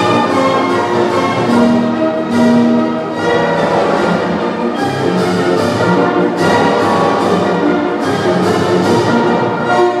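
Orchestral dance music with violins, played at a steady, even beat.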